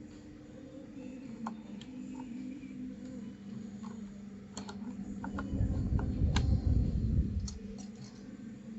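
Scattered clicks and taps of plastic keycaps being pulled off and pressed onto a mechanical keyboard. A louder low rumble of handling comes from about five and a half to seven seconds in.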